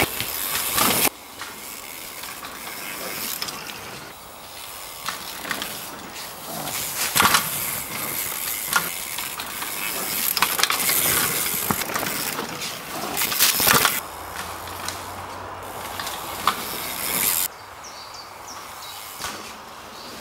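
Downhill mountain bike ridden hard over a dirt and rock trail: knobby tyres hissing and skidding on loose soil, with clattering and clicks from the chain, suspension and frame over rough ground. The sound swells as the bike passes and breaks off abruptly a few times.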